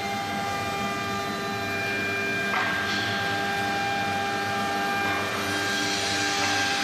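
Small CNC engraving router running: a steady whine of several tones from the spindle and motors, with a rougher hiss joining about two and a half seconds in.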